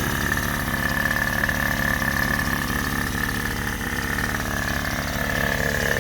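Datsun L20B 2.0-litre four-cylinder engine with points ignition idling steadily on a freshly fitted Weber 32/36 carburetor, with a steady high-pitched whine over the even low running.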